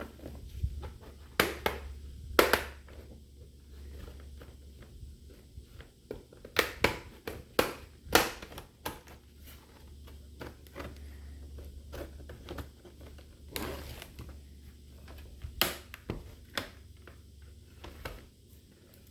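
Irregular sharp clicks and cracks of a laptop's plastic case being handled and pried apart, over a low steady hum.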